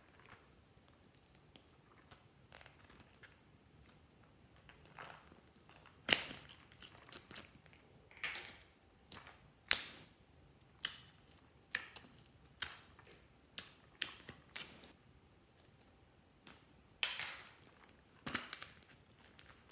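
Sharp plastic clicks and snaps from a hand-cream tube's cap and small plastic and silicone toys being handled and opened. About a dozen separate clicks come from about six seconds in, with soft handling noise between them.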